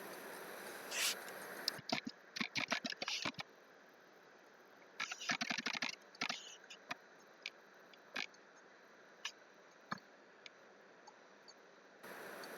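Computer keyboard typing and clicking: two quick runs of keystrokes, then scattered single clicks, over a soft hiss.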